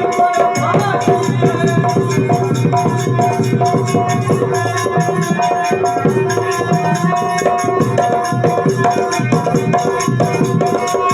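Instrumental music: fast, dense drumming over steady held tones, played without singing.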